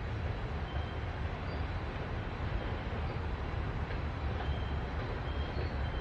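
Freight cars (a tank car and covered hoppers) rolling slowly across a steel truss railroad bridge as they are shoved from behind: a steady low rumble of wheels on the rails.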